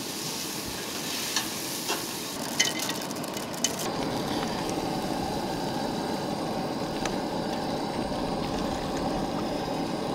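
Vegetables sizzling in olive oil in a pot on a camp stove while being stirred with a spatula, with a few clicks of the utensil against the pot in the first few seconds. After about four seconds the sound turns into a steadier, fuller sizzle and bubble as the pasta cooks in the sauce.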